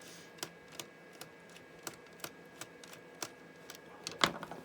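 Light, short clicks, about two or three a second, from a screwdriver working screws out of a laptop's plastic case, with one louder click near the end.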